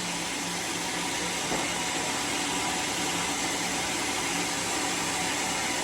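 Sawmill machinery running steadily: an even hiss with a faint low hum underneath.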